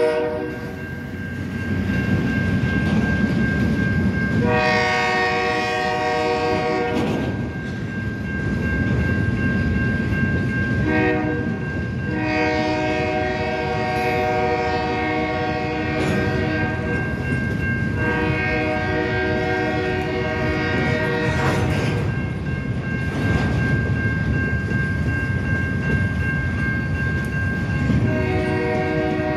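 CN freight train rolling past at close range, its wheels rumbling and clattering over the rails as flatcars and covered hopper cars go by. Over it, a train horn sounds from the locomotives at the head end in several long blasts and one short one.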